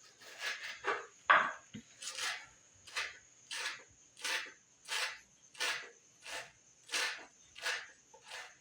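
A run of short, even strokes, about three every two seconds, like chopping or scraping on wood, over the steady high trill of a cricket.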